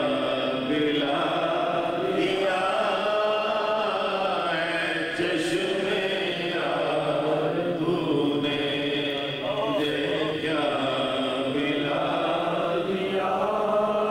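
Men's devotional chanting: a slow melody sung in long, drawn-out notes that waver gently, without a break.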